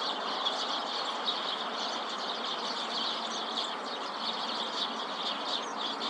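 A flock of Eurasian tree sparrows chirping, many short calls overlapping without a break, over a steady background noise.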